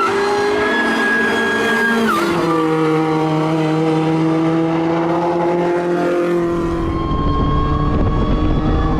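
Supercharged Mazda MX-5 NB engine running under load. Its pitch drops sharply about two seconds in, as at a gear change, then holds nearly level. A low rumble of wind or road noise builds from about six and a half seconds in.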